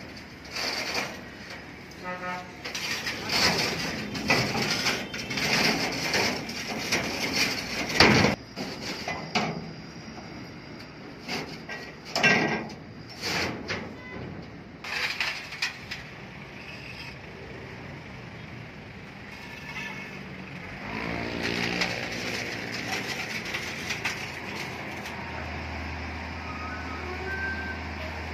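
Handling noise from plastic-wrapped machine crates being wrapped and shifted by hand: irregular crackling, scraping and knocking, with one loud knock about eight seconds in. The handling thins out after about sixteen seconds, and a steady low hum starts near the end.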